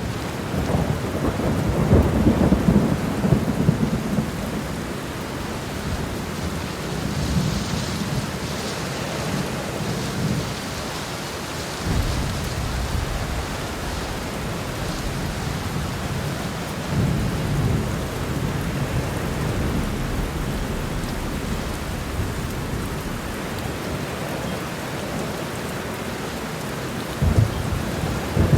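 Heavy rain pouring steadily with thunder rumbling through it in several rolling swells, the strongest just after the start and a sharper crack near the end.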